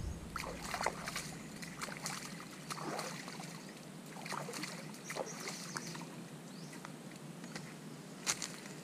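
Hands sloshing and splashing in shallow pond water at the bank, a series of short irregular splashes.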